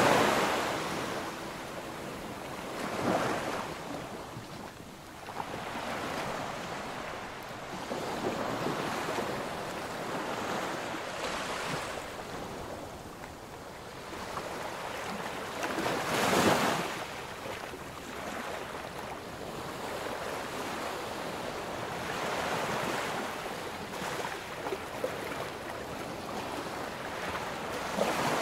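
Surf breaking on a sandy beach: a steady wash of waves with louder crashes a few seconds in, around the middle and near the end, the one in the middle loudest.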